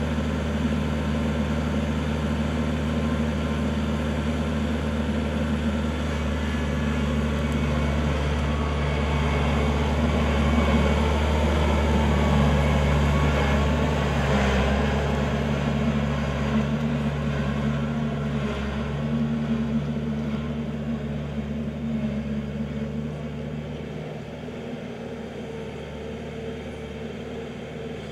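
Kubota L4400 tractor's four-cylinder diesel engine running steadily under work, a little louder around the middle and quieter near the end.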